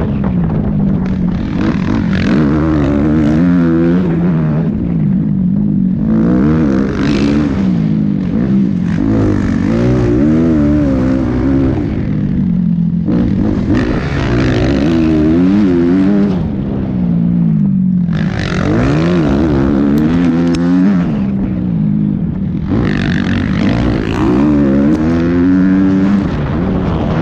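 Motocross bike engine at race pace, heard on board: the revs climb and fall as it runs through the gears, with the throttle shut off briefly several times for turns and then reopened.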